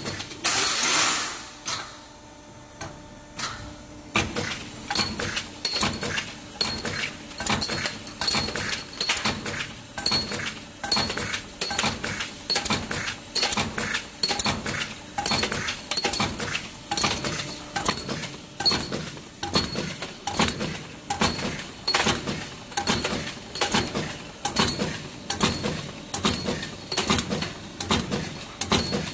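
Automatic 20 mm round steel bar cutting machine running its cycle. The hydraulic cutter shears off a short length of bar with a sharp metallic clank about once a second, evenly repeated. The rhythm settles in about four seconds in, after a brief burst of noise and a quieter pause.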